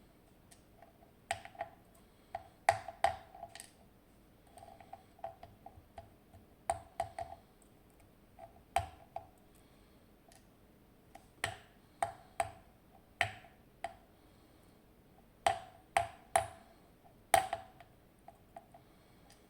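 Irregular sharp metallic clicks and taps from the small parts of a zIKON SK6 lock cylinder being handled and set down as it is taken apart. Some come singly, some in quick clusters, each with a short ring.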